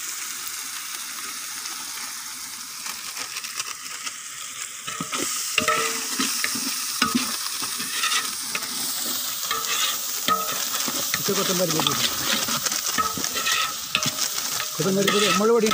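Onion-tomato biriyani masala sizzling in oil in a large metal pot. From about five seconds in, a ladle stirs it with frequent clicks and scrapes against the pot.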